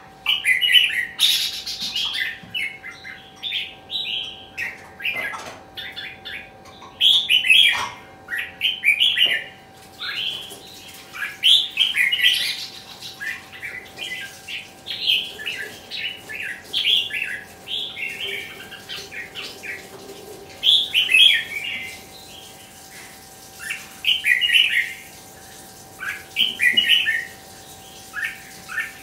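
Red-whiskered bulbul singing: loud, short, warbled phrases repeated every second or two with brief pauses, over a faint steady hum.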